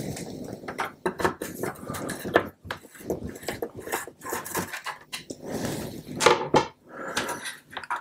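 Screws being backed out of a home computer's plastic case with a hand screwdriver and set down on a work mat: an irregular run of small clicks, scrapes and light metal taps.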